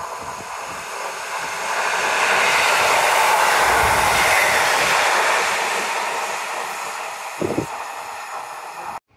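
EN57AKM electric multiple unit passing at speed: a rushing sound of wheels and air that swells about two seconds in, stays loud for a few seconds as the cars go by, then fades as the train moves away.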